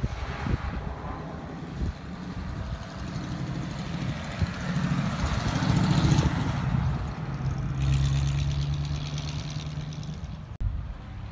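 1934 Ford coupe's engine as the car drives by: the engine note builds as it approaches, is loudest as it passes about six seconds in, then runs steadily as the car pulls away.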